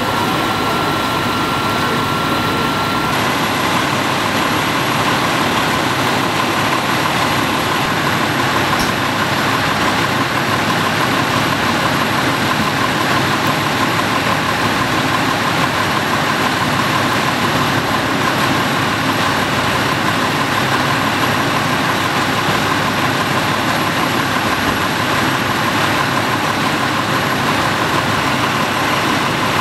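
Fire engine's diesel engine idling: a steady, unchanging engine noise with a faint constant tone.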